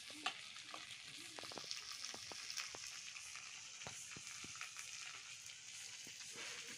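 Pieces of crab frying in oil in a pan: a soft, steady sizzle with scattered pops and crackles.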